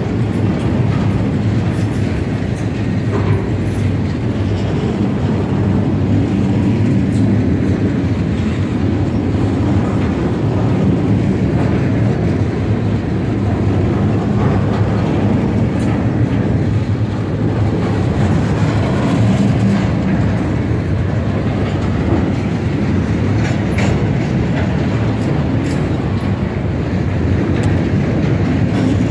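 Loud, steady rumble of a double-stack intermodal freight train's well cars rolling past on steel wheels, with scattered clicks and clanks from wheels and couplings.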